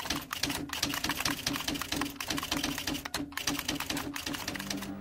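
Typing sound effect: a rapid, uneven run of key clicks, several a second.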